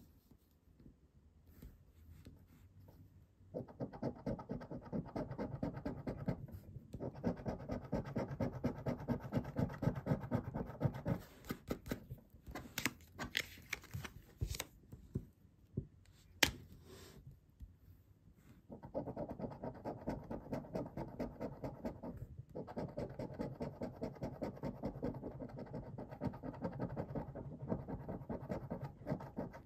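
A coin scraping the coating off a Banco scratch card on a table in rapid back-and-forth strokes. There are two long spells of scratching, with a pause in between that holds a few sharp clicks.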